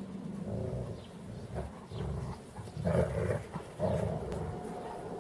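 Great Pyrenees dogs growling in rough, repeated bursts as they play-fight, loudest about three seconds in.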